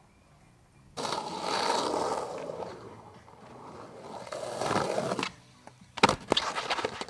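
Skateboard wheels rolling hard over rough concrete: a rolling run starting abruptly about a second in, then a second one that swells and fades. Near the end come several sharp clacks and slaps of the board and skater hitting the concrete.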